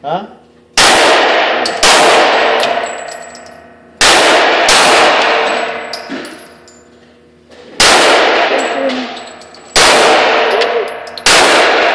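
Glock 26 9mm subcompact pistol fired about seven times at an uneven pace, one to three seconds apart. Each sharp shot rings with a long echo off the walls of an indoor range.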